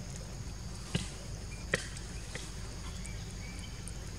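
Forest ambience: a steady high-pitched insect drone over a low wind rumble on the microphone, with two short sharp clicks about one second and just under two seconds in.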